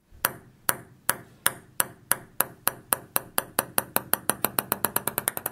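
Logo-intro sound effect: a run of sharp pings that start about half a second apart and speed up steadily until they run together near the end.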